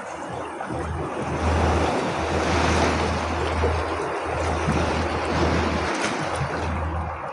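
Ocean waves washing in a continuous surge of surf that swells to its loudest between about one and a half and three and a half seconds in, over a low rumble.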